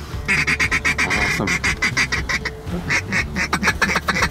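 Duck call blown in fast runs of quacks, with a short break about two and a half seconds in, calling to an incoming duck.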